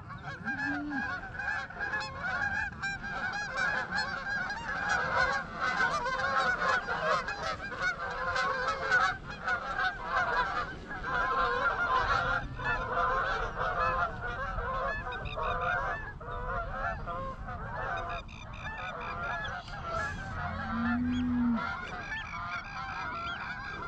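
A large flock of Canada geese honking, many calls overlapping in a continuous clamour as the birds come in low to land.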